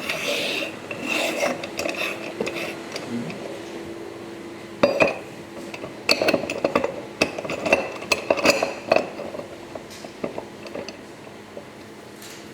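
Aluminium mount parts and tools clinking and knocking together as they are handled during assembly, with one sharp knock about five seconds in and a quick run of clinks after it.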